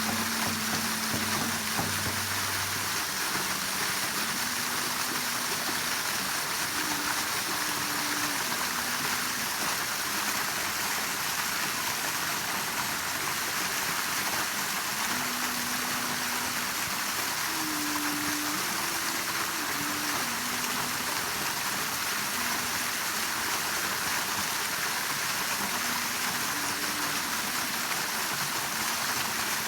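Waterfall rushing steadily. Faint held low notes of a slow melody sound now and then underneath, stronger in the first few seconds.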